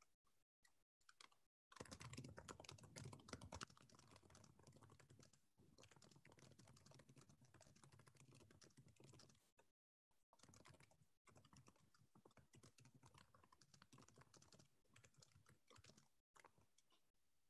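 Faint typing on a computer keyboard: rapid, uneven key clicks in two long runs, with a brief stop near the middle and abrupt dropouts to silence.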